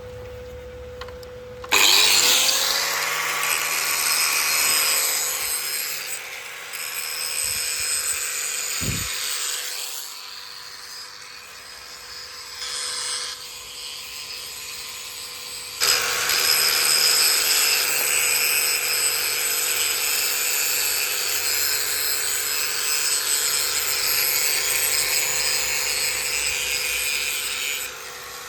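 A power tool working in two long runs, the first starting about two seconds in and stopping about ten seconds in, the second starting about sixteen seconds in and running nearly to the end.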